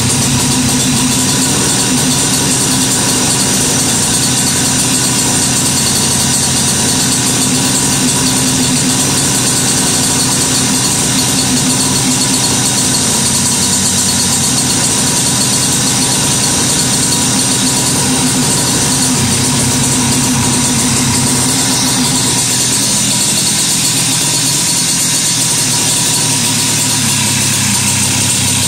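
Two-stroke moped engine running steadily, its rapid buzz carrying a steady high-pitched whine. The owner says the carburetor is not holding idle and needs replacing.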